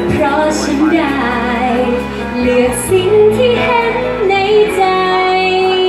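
A woman singing into a handheld microphone over instrumental accompaniment; from about four seconds in she holds one long note.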